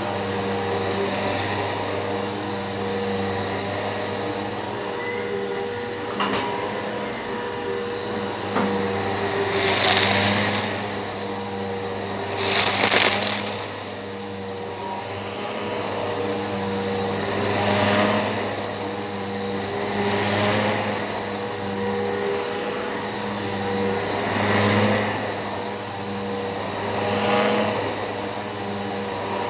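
Eureka PowerSpeed upright vacuum cleaner running steadily with a constant high motor whine. A rush of air swells and fades every two to three seconds as it is pushed back and forth, loudest in two surges about ten and thirteen seconds in.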